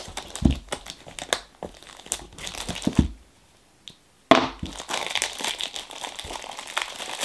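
Clear plastic shrink-wrap crinkling and crackling as it is handled and pulled off a toy's packaging, in irregular crackles. It stops briefly a little past three seconds in, then starts again suddenly and loudly about four seconds in.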